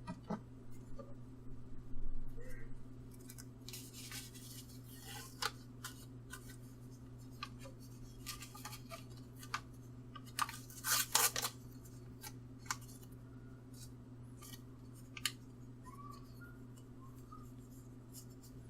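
Paintbrush scratching and dabbing on a 3D-printed plastic part: scattered short scratchy strokes and light clicks, busiest a couple of seconds in and again around ten seconds in, over a steady low electrical hum.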